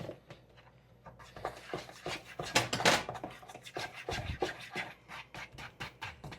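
Irregular small clicks, taps and scrapes of kitchen items being handled, with a louder clatter about three seconds in.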